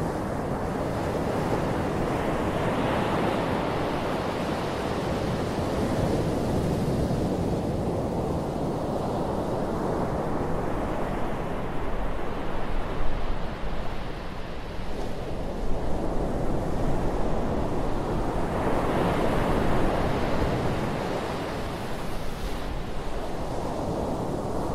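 Gentle surf breaking and washing up a flat sandy beach. The rushing noise of the waves swells and eases every few seconds.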